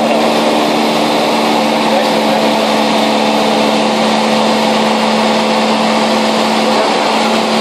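Light propeller aircraft's engine running steadily in cruise, heard from inside the cabin: a constant hum on one low pitch over a loud rush of air.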